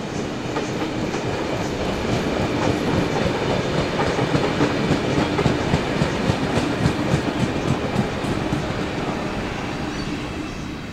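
Passenger carriages of a heritage steam train rolling past close by, their wheels clacking rapidly over the rail joints with a steady rumble. The sound is loudest midway and eases off near the end as the last wagon passes.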